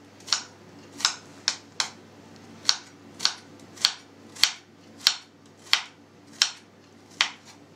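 Kitchen knife chopping onion on a plastic cutting board: about a dozen sharp knocks, roughly one every half second to second.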